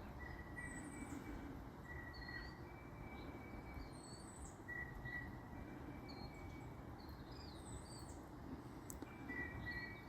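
Small birds chirping: short calls repeated every second or two at several pitches, faint over a low, steady outdoor background rumble.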